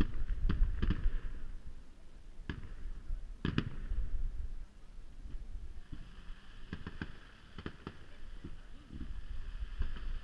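Fireworks display: aerial shells burst with sharp bangs, several in the first second and two more a few seconds in. Over the last few seconds comes a hiss with scattered crackling pops as more effects rise and burst.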